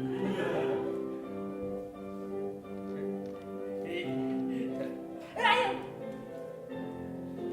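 Music playing in long held notes, with a brief louder voice-like burst about five and a half seconds in.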